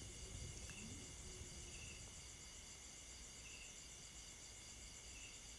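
Faint, steady insect chorus, a high continuous trilling of crickets, with a few short chirps now and then.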